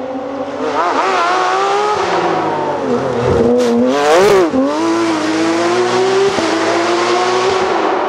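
Porsche 911 GT3 rally car's flat-six engine at high revs as the car goes by at speed. The pitch wavers with the throttle and gear changes, swings sharply about four seconds in as the car passes close, then holds high as it pulls away.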